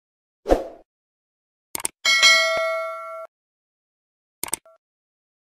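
Subscribe-button end-screen sound effects: a short swoosh, a double mouse click, then a notification-bell ding that rings for about a second and cuts off, and a second double click near the end.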